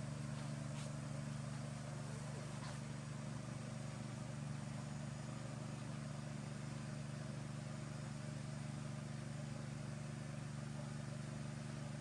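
Steady low mechanical hum under a faint hiss, with a couple of brief faint high sounds in the first three seconds.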